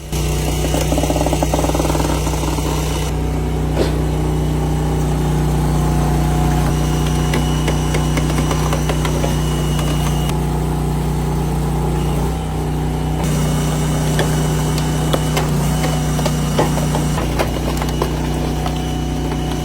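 Firewood processor's engine running steadily at a constant speed, with scattered light clicks and knocks.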